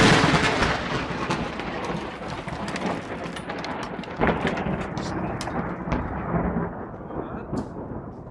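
Thunder from a close lightning strike, loudest at first and rumbling as it slowly dies away, with scattered sharp crackles through the middle.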